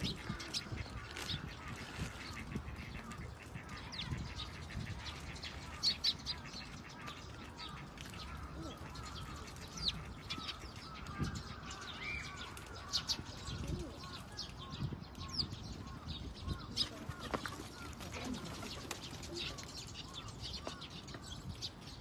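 Birds chirping over and over, many short high calls scattered throughout, with a few brief sharp clicks, the loudest about six seconds in.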